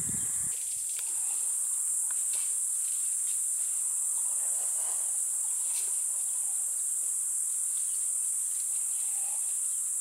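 Steady, high-pitched drone of a chorus of insects, unbroken throughout, with a few faint ticks.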